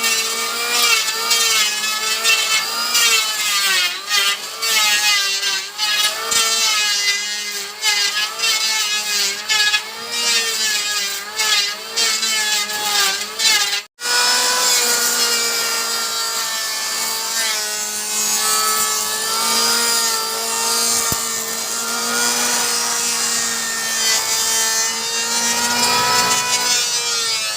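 Electric wood planer running through wood: a motor whine that wavers in pitch as the blade bites, over a steady rasping of shavings. The sound cuts out for an instant about halfway through, then continues with a steadier whine.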